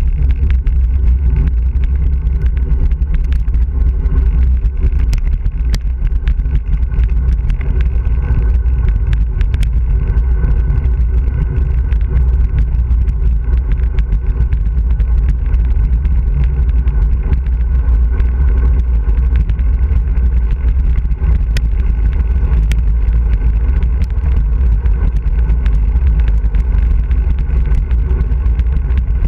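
Wind buffeting the camera's microphone on a fast bicycle descent: a loud, steady low rumble, with tyre noise on the asphalt and scattered sharp clicks.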